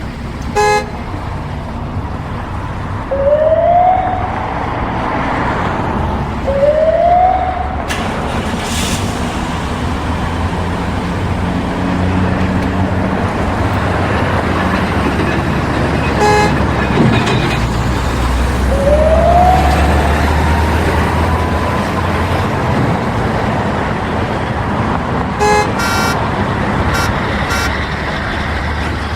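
Heavy city street traffic: a steady rumble of engines and tyres, with car horns tooting a few times and three short rising siren-like tones.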